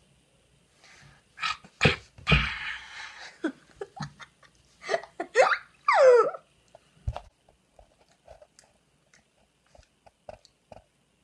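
A girl's wordless vocal noises: short breathy sounds and laughs, and a squeal that falls steeply in pitch about six seconds in, followed by a few small scattered sounds.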